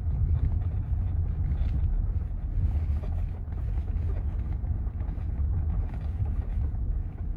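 2013 Audi A6 C7 moving, with a steady low rumble and faint intermittent creaks from the left front suspension, a creak that shows up only when the car is cold.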